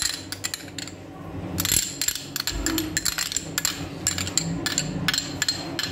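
Metal spoon clinking and scraping against a ribbed glass bowl in a run of quick, irregular taps as cream is scooped onto an egg.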